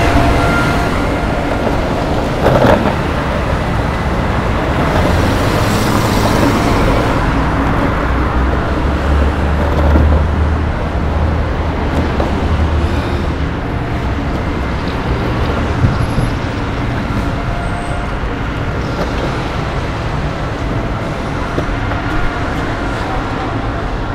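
Continuous rumble of a longboard's wheels rolling over tarmac and paving, over steady road traffic with cars and heavier vehicles passing. A deeper low rumble swells about ten seconds in, and a few short knocks stand out.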